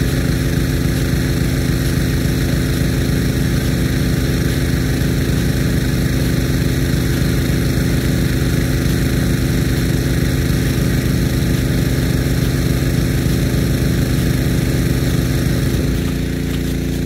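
Engine running steadily with a fast regular low beat, with a steady hiss above it. About a second before the end the beat drops away and a quieter, steadier hum carries on.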